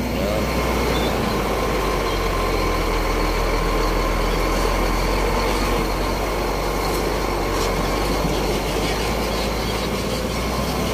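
Heavy truck's diesel engine running steadily as the rig rolls along, with road and chassis noise, heard from the cab.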